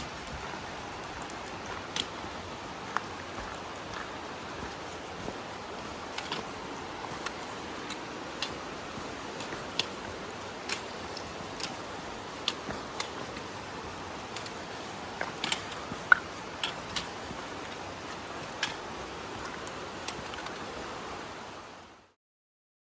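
Steady rushing outdoor noise with scattered sharp clicks and taps, cutting off suddenly about a second before the end.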